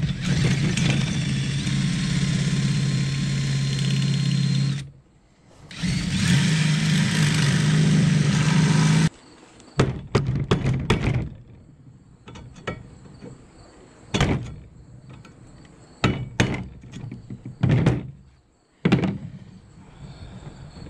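DeWalt cordless drill running under load as it drills into the steel studs pinning the old handle into the spade's socket: one run of about five seconds, a brief pause, and a second run of about three and a half seconds that stops abruptly. After that come scattered sharp knocks and taps of metal tools against the metal socket.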